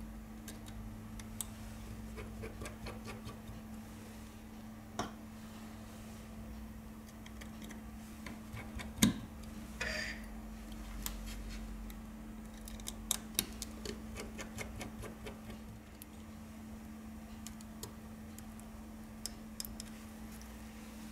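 Scattered small clicks and taps of a precision screwdriver and metal parts being handled on an opened iPhone 6, over a steady low hum. A sharper click comes about nine seconds in, and a run of quick ticks a few seconds later.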